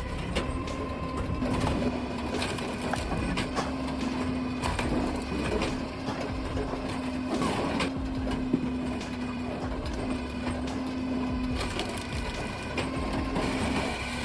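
A firewood processor running: a steady mechanical hum from its engine and hydraulics, with irregular knocks and clatter of wood being cut and split.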